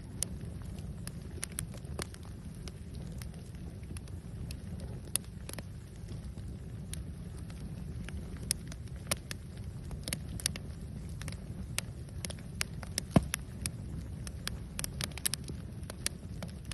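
Fire crackling: irregular sharp pops and snaps over a steady low rumble, with one louder pop about two-thirds of the way through.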